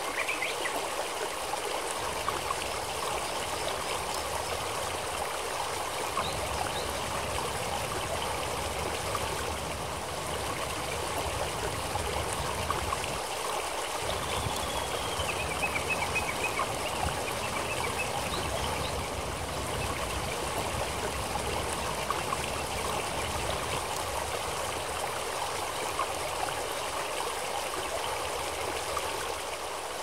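A shallow, rocky forest stream running steadily over stones, with a faint bird call about halfway through.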